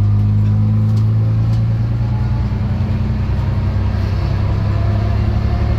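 Bristol RE bus's rear-mounted diesel engine running at a steady pitch, heard from inside the bus near the front.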